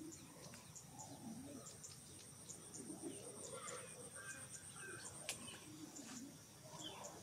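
Faint forest ambience: a steady high insect drone with short regular ticks, a few bird chirps in the middle, and a single sharp click about five seconds in.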